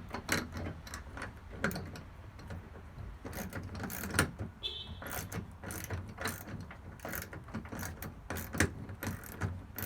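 Hand ratchet wrench clicking in short, irregular runs, with sharp knocks of metal tools and hardware, as a bolt on a garage door roller bracket is turned by hand.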